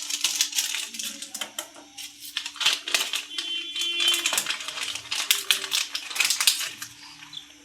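Whole black peppercorns and cloves being stirred while they dry-roast on a tawa griddle: a fast, irregular run of small rattling clicks and scrapes, thinning out near the end.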